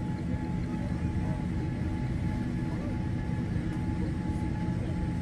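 Steady low rumble of a jet airliner's cabin noise, with a faint steady whine above it.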